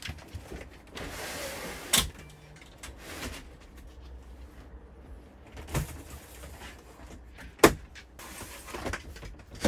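Motorhome cab window blinds being pulled open: a sliding rush of about a second, then a few sharp clicks and knocks as they are pushed back and latched, the loudest near the end.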